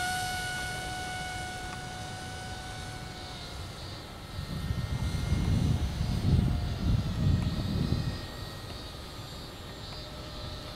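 The 1406 2600KV brushless motor and two-blade propeller of a small foam RC plane whine steadily in flight, fading as the plane flies away. A low rumbling noise swells between about four and eight seconds in.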